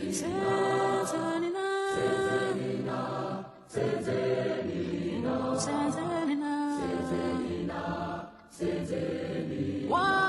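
A group of voices singing a slow chant in long held notes, in three phrases broken by two short pauses.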